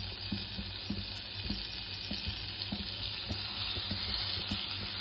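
Butter and a little oil sizzling steadily in a hot nonstick pan as the butter melts, with light scraping as a steel spoon pushes the butter around.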